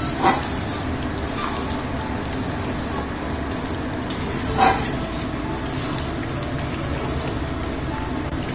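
Thick spinach gravy cooking down in a metal kadai with a steady sizzle while a spatula stirs it. The spatula scrapes or knocks sharply against the pan twice, once just after the start and once about halfway through.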